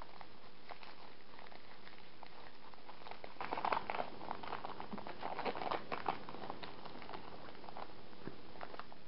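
Foil wrapper of a Pokémon card booster pack crinkling and tearing as it is pulled open by hand. Small scattered crackles, with the crinkling loudest from about three to six and a half seconds in, over a steady faint hiss.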